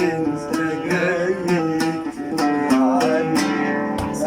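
Live Arabic music: a plucked-string instrument and other instruments carry a sustained melody, with some singing. A short low thump sounds near the end.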